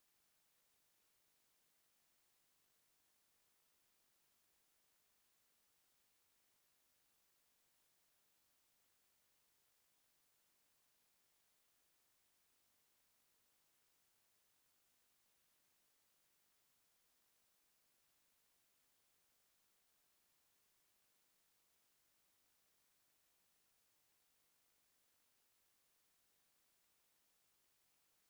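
Near silence: an empty, unchanging noise floor with no audible event.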